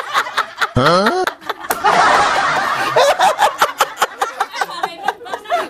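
A man laughing hard: a rising whoop about a second in, then a long breathy stretch, then quick repeated chops of laughter.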